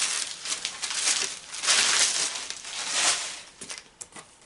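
Tissue paper crinkling and rustling in uneven bursts as it is pulled off a wrapped box. It dies away about three seconds in, leaving a few faint clicks.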